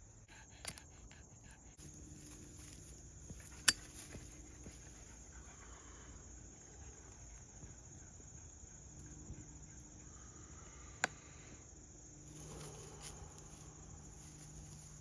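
Quiet outdoor ambience with a faint low hum that comes and goes, broken by two sharp clicks, the louder about four seconds in and another about eleven seconds in. A soft breathy hiss near the end as smoke from a joint is exhaled.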